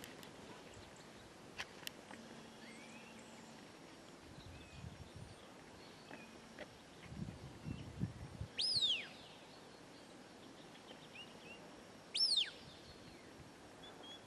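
Two loud, sharp whistle notes, each falling steeply in pitch and about three and a half seconds apart: a shepherd's whistle commands to a sheepdog working sheep. Faint small bird chirps run underneath.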